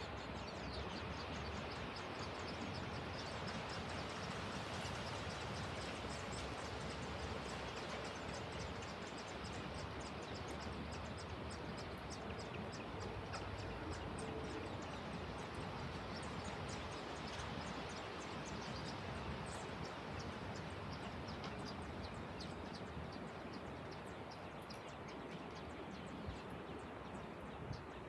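Nestling songbirds begging: a fast, steady run of short, high peeps while they gape for food, thinning out over the last several seconds, over a steady background hiss.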